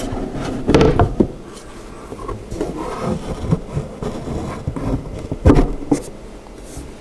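Wooden panels of a doll armoire being pushed and fitted together by hand, with a side panel's dowel being worked into its hole: scraping and rubbing with a few sharp wooden knocks, the loudest two close together about five and a half seconds in.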